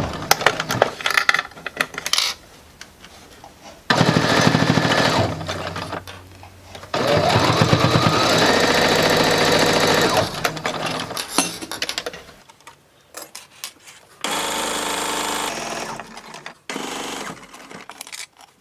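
Electric domestic sewing machine stitching along a narrow cotton tie band, running in several bursts of a few seconds and stopping between them. At the start of the longest run, about seven seconds in, the motor speeds up.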